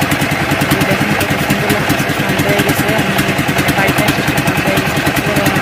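A river ferry boat's engine running steadily, a fast, even thumping of about a dozen beats a second under a low hum.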